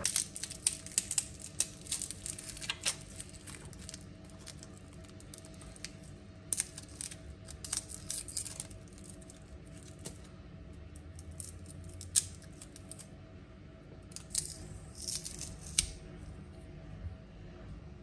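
Papery garlic skins crackling and rustling as cloves are peeled with a small paring knife, with sharp little clicks and scrapes of the blade on the cloves and the wooden cutting board. The crackles come in clusters of quick strokes with quieter gaps between, busiest at the start, in the middle and near the end.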